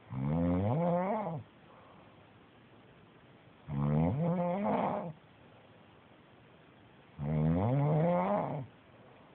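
Snoring: three long, pitched snores about three and a half seconds apart, each rising and then falling in pitch, with quiet between them.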